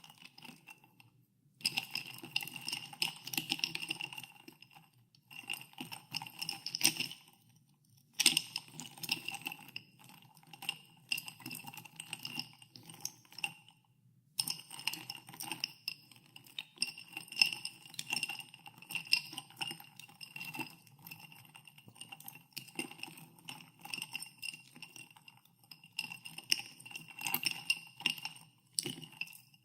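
Ice cubes stirred in a glass of carbonated water, clinking rapidly against the glass, which rings at a few fixed pitches after each knock. The stirring comes in runs with a few brief pauses.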